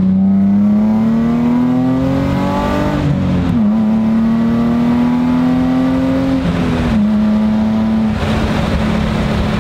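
Infiniti G35's 3.5-litre V6 through a straight-piped exhaust (catless test pipes, Z1 Y-pipe and Z1 catback), accelerating. The exhaust note climbs in pitch and drops at an upshift about three and a half seconds in. It climbs again, drops at a second upshift about seven seconds in, then holds steady.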